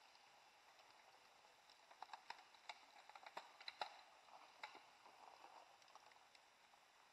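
Faint, irregular clicks and crackles from a mountain bike passing on a dry dirt forest trail, loudest about four seconds in, over near silence.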